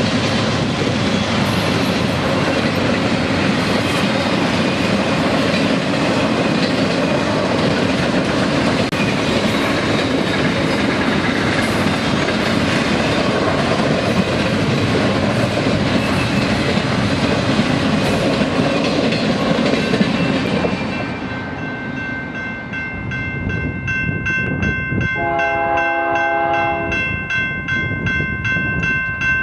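A freight train rolling past with a loud, steady rumble of wheels on rail. About 21 seconds in the rumble drops away, and a diesel locomotive's multi-chime air horn sounds, with a lower chord joining it a few seconds later.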